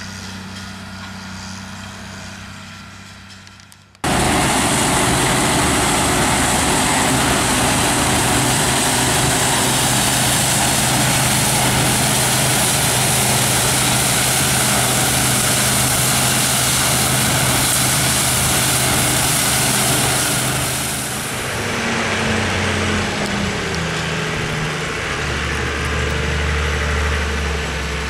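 A Steyr tractor engine running steadily. About four seconds in it cuts to a Claas Dominator 98 SL combine harvester threshing grain, much louder and full of hiss. From about 21 s it changes to a quieter engine whose pitch falls, then a deep steady drone from a Steyr Turbo tractor running a Pöttinger Rollprofi round baler.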